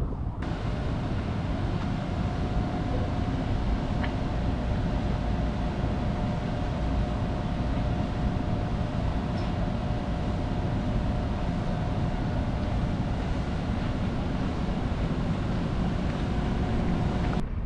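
Steady ambient rumble and hiss, with a faint steady hum running above it.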